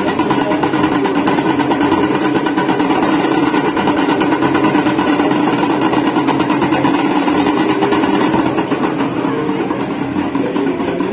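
Loud, steady, rapid clanging of aarti bells and percussion while the lamps are waved at the Ganga aarti, dense and without a break.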